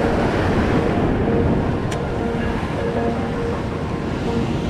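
Sea surf breaking against rocks, with wind buffeting the microphone: a steady rushing noise.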